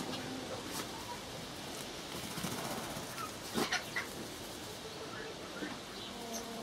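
Garden ambience: a steady hiss with faint short bird chirps now and then, and a couple of sharp clicks about three and a half seconds in.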